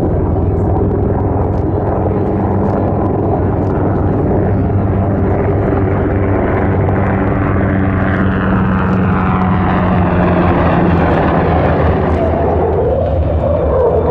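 Jet aircraft engines running on an airfield: a loud, steady low drone with a higher whine that sweeps down in pitch partway through.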